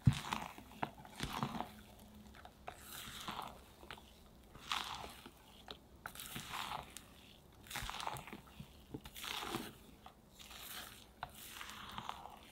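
A spatula folding thick whipped-egg cake batter in a glass bowl, making repeated wet scraping and squishing strokes about one every second or so. There is a sharp knock right at the start.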